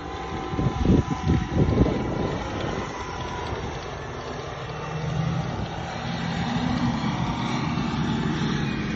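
SUV engine running under load as the vehicle churns through soft dune sand, a steady drone that firms up about halfway through. Wind buffets the microphone in low thumps during the first two seconds.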